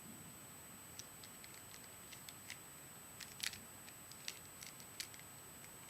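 Rubik's Cube layers being turned by hand: faint, irregular plastic clicks, with a few sharper ones about halfway through, over a steady hiss.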